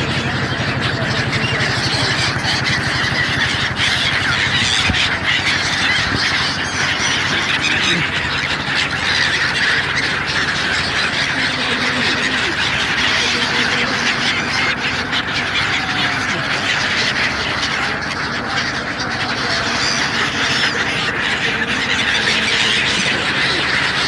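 A large flock of migratory birds calling continuously, with many cries overlapping into a steady din.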